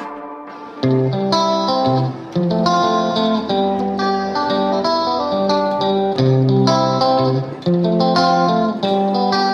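Background music led by plucked guitar, a melodic line of single notes that comes in about a second in.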